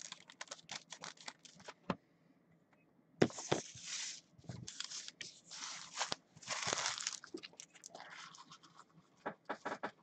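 Trading-card pack wrappers being torn open and crinkled as the cards are pulled out: light clicks at first, then a run of short crackling rips from about three seconds in.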